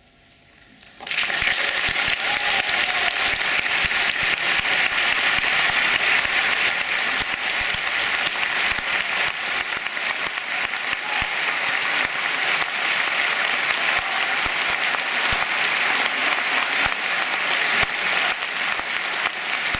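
A concert audience breaks into loud, steady applause about a second in, after a moment of quiet following the last notes of the piano piece.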